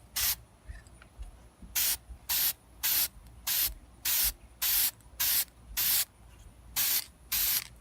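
Spray paint hissing out in short, even bursts, about one every half second with a brief pause near the end. This is a second coat of paint going onto a headlight housing.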